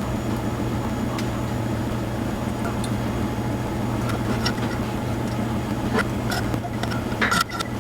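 A steady low hum, with a few short sharp clicks about six seconds in and again just before the end.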